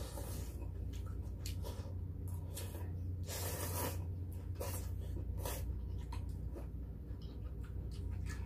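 Two people eating beef short-rib soup with noodles from stone pots: repeated wet slurps of noodles and broth, with a longer slurp about three seconds in. Short clicks of chopsticks and spoons are heard against the pots, over a steady low hum.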